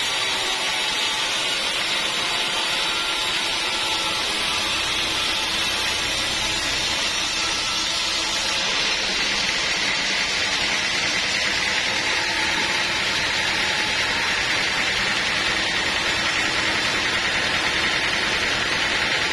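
Sawmill saw running steadily as it cuts through teak wood: a continuous, loud, hissing machine noise.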